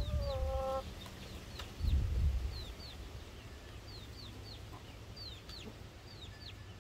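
Hens clucking, with one drawn-out call in the first second, while short, high, falling chirps repeat throughout. A low rumbling noise on the microphone at the start and again about two seconds in is the loudest part.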